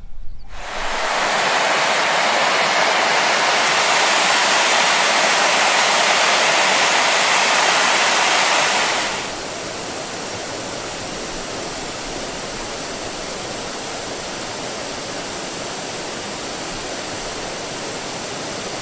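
River water rushing steadily. It starts abruptly, stays loud for about nine seconds, then drops suddenly to a quieter steady rush.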